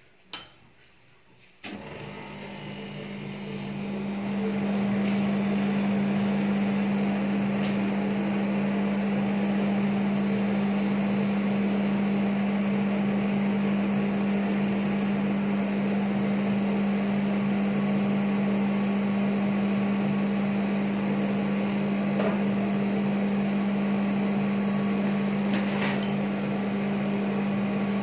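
Refrigeration unit of a rolled-ice-cream cold-plate machine switching on with a click and running with a steady hum that builds up over a couple of seconds, cooling the steel plate. A few faint clicks sound over it.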